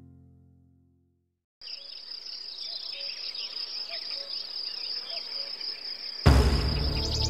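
An acoustic guitar chord rings out and dies away, followed by a moment of silence. Then a steady high cricket chirr begins, with faint bird chirps, as a recorded nature-sound intro. About six seconds in, loud music comes in over it.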